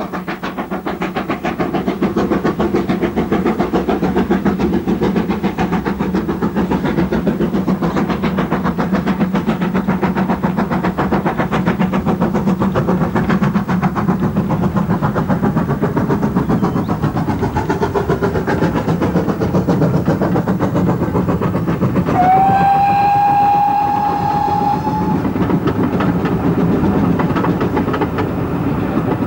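GWR 6100-class large prairie tank engine No. 6106 working a passenger train, its exhaust beating rapidly and evenly. About 22 seconds in it sounds its steam whistle, one note held for about three seconds after a short upward slide.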